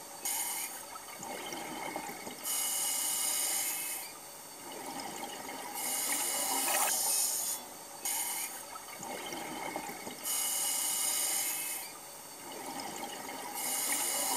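Scuba diver breathing through a regulator underwater: a loud hiss on each inhalation, about every four seconds, alternating with quieter rushing bubbles on the exhalations.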